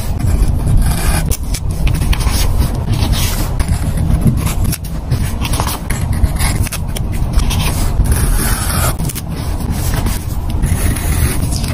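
Close-miked paper scraping and rustling: a craft knife blade scraping under paper stickers to lift them off their sheets, and stickers being peeled and pressed onto a journal page, in many short scratchy strokes over a steady low rumble.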